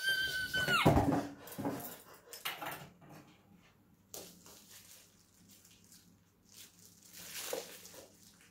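A woman's high-pitched excited squeal, held and then dropping away about a second in. It is followed by intermittent crinkling of a plastic bag and bubble wrap being handled.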